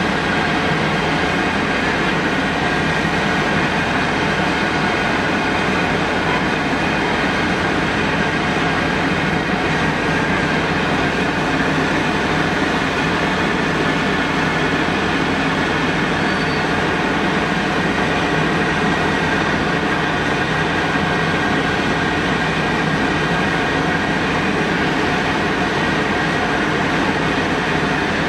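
Potatoes deep-frying in a large built-in fryer of hot oil: a loud, steady, unbroken sizzle and bubbling.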